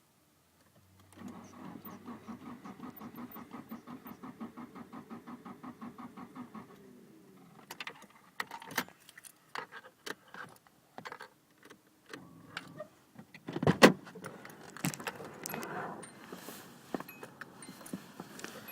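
Nissan SR20DET engine cranking on the starter, an even pulsing for about six seconds, without firing: the engine won't start even though the fuel pump primes. Then scattered clicks and rattling, with one loud sharp knock about fourteen seconds in.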